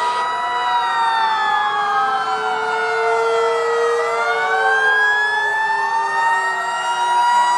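Several fire engine sirens wailing at once, their pitches slowly rising and falling and crossing over one another.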